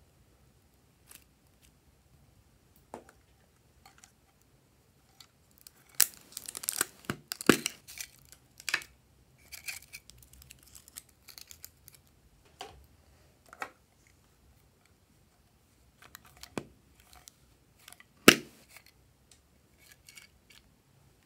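Scattered crinkles, crackles and small clicks as glitter sequins and flat plastic confetti pieces are handled and dropped into a tray of slime. The busiest, loudest crackling comes about six to eight seconds in, with a single sharp snap near the end.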